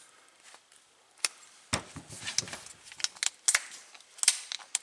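Ratcheting keyless chuck of a DeWalt DCD771 cordless drill turned by hand, giving a string of sharp, irregular clicks from about a second in. These ratchet clicks mark a locking chuck.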